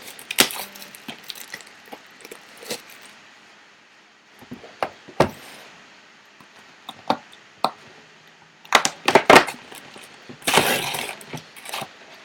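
A sealed box of trading cards being opened by hand: scattered crackles and clicks of plastic wrap and cardboard, with a quick run of sharp crackles and then a longer rustle near the end.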